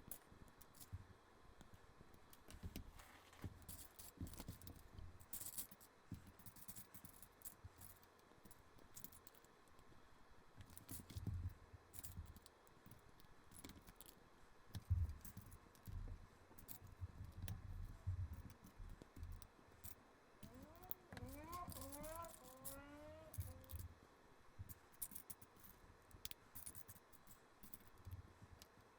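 Faint, scattered clicking and rattling of plastic LEGO bricks being picked up and pressed together during a build. A short squeak that wavers in pitch comes about two-thirds of the way in.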